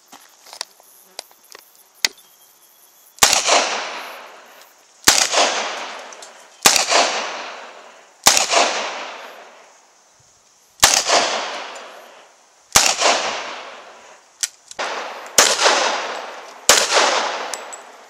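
Handgun firing eight single shots, spaced about one and a half to two and a half seconds apart, starting about three seconds in. Each shot trails off in a long echo.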